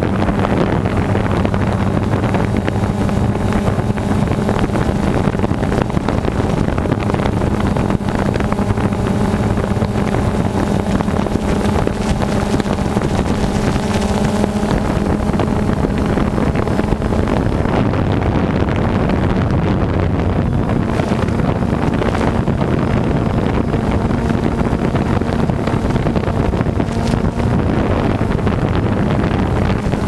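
DJI Phantom 2 quadcopter's motors and propellers humming steadily in flight, picked up by the GoPro mounted on it, with wind rushing over the microphone.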